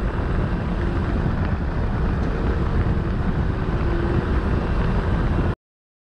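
Ride noise from a Kymco scooter: wind buffeting the microphone over the scooter's running engine and road noise, steady throughout, in a road tunnel. It cuts off suddenly near the end.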